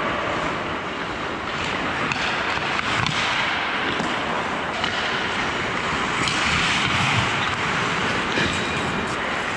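Ice hockey skates scraping and carving on the ice as players skate around the net, with scattered clacks of sticks and puck.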